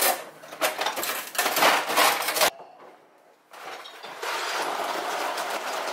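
Ice cubes rattling and clinking in a refrigerator's freezer ice bin as it is pulled out and handled, a run of clattering for about two and a half seconds; after a short pause a steadier rushing sound follows.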